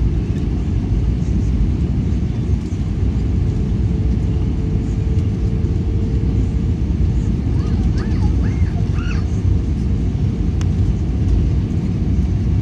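Cabin noise inside an Airbus A320 on its landing approach: a steady low rumble of the engines and airflow over the fuselage, with a faint steady hum through the middle of it.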